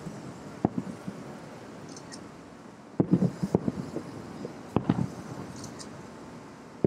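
Distant aerial fireworks shells bursting, heard from about two miles away as dull booms and cracks. Two come about half a second in, a quick volley around three seconds, and two more near five seconds.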